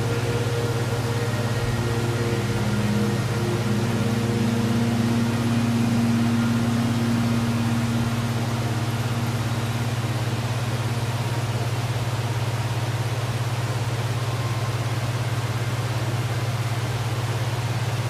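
Waterfall: a steady, unbroken rush of falling water with a strong low rumble under it.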